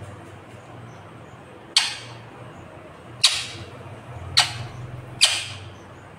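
Indian ringneck parakeet giving four short, sharp squawks, each starting suddenly and fading quickly, spaced about a second or a second and a half apart.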